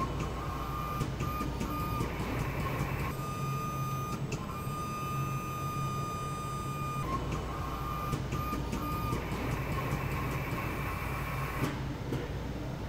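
Paint-shop robots and machinery running: a steady electric whine over a low hum, whose character shifts suddenly every few seconds.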